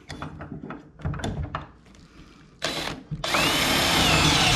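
Cordless drill with a twist bit boring a hole through a wooden door stile: a short burst of the drill about two and a half seconds in, then it runs steadily with a whine as the bit cuts through the wood. Before it starts, a few light knocks.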